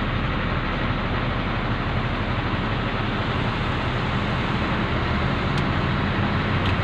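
Truck engine running and road noise heard from inside the cab while driving, a steady low drone.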